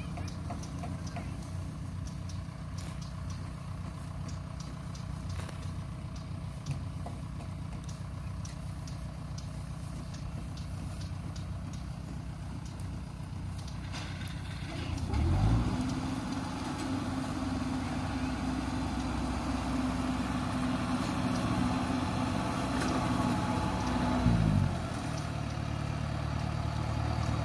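Farm machinery engine running steadily, then revved up hard about halfway through and held at high speed for about nine seconds before dropping back to a lower running speed, as the machines work to free a combine harvester bogged in the mud.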